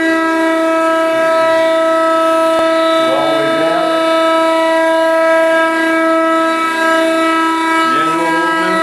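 Marvel V10A2 vertical band saw running under power with its hydraulics on: a loud, steady, even whine made of several constant tones, the machine running smoothly after start-up.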